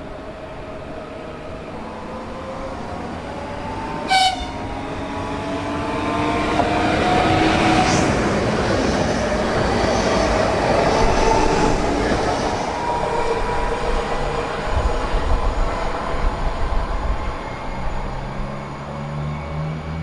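Pesa Elf electric multiple unit passing along the platform: a brief high horn blast about four seconds in, then traction-motor whine and wheel-and-rail noise growing louder as the train goes by. Irregular wheel clatter over the rail joints follows later on.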